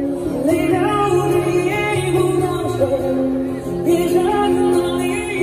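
A song playing: a singing voice carrying a melody over steady instrumental backing.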